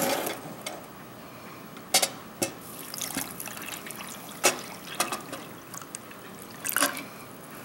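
Water trickling and splashing as it is poured from a plastic canteen into a steel canteen cup. A loud sharp knock at the start and a handful of lighter clicks and knocks of the cup and canteen follow through the pour.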